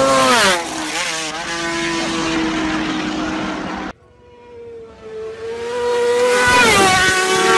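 Racing motorcycle passing at full speed close by, its engine note dropping sharply as it goes past and then trailing away. About four seconds in, another racing motorcycle is heard approaching with a rising engine note and passes loudly near the end, its pitch falling steeply again.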